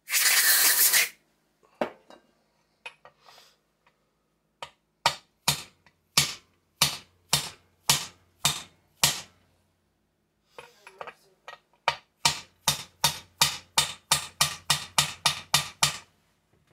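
A short burst of hiss, then hammer taps on metal parts of a Husqvarna 288 chainsaw engine: about eight sharp taps roughly half a second apart, then after a pause a quicker run of about a dozen taps, around three a second.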